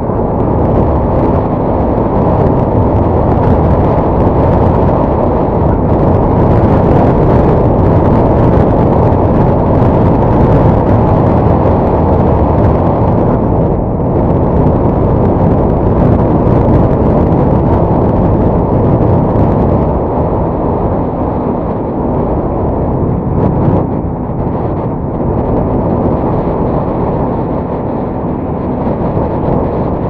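Strong wind buffeting the microphone, a loud, steady rumble that eases slightly in the second half.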